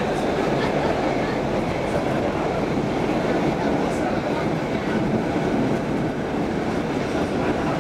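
Stockholm Metro C6 subway car running at speed, heard from inside the car: a steady, continuous rumble of wheels on rails and running gear.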